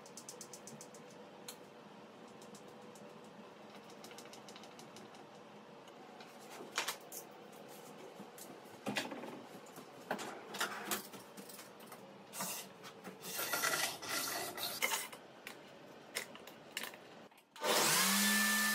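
Wooden parts and tools handled on a table-saw crosscut sled: scattered knocks, clicks and rubbing. Near the end a table saw switches on, its motor spinning up quickly to a loud steady run.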